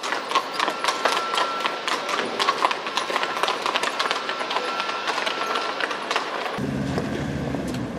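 City street ambience with a carriage horse's hooves clip-clopping, many sharp clicks over a steady street hiss. About two-thirds of the way in the sound changes to a lower, steadier hum.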